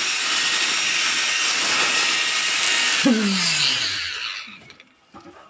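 Electric poker (needle) concrete vibrator running with a steady high whine while immersed in freshly poured foundation-beam concrete. About three seconds in it is switched off, and its motor winds down with a falling hum that fades out after about a second and a half.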